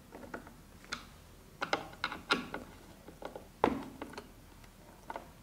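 A manual Phillips screwdriver turning a minifix cam-lock fitting in a particleboard shelf panel, tightening it onto the connecting bolt: a dozen or so irregular clicks and taps of metal on metal and wood.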